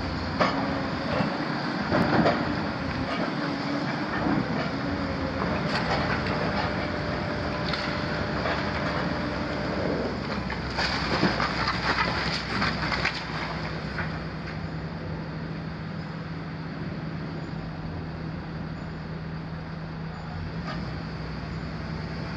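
Hitachi 250 long-front demolition excavator working, its engine running under clattering crashes of masonry and debris as the building is torn down. The crashing comes in bunches in the first few seconds and again in the middle, then settles to a quieter, steady engine hum after about 14 seconds.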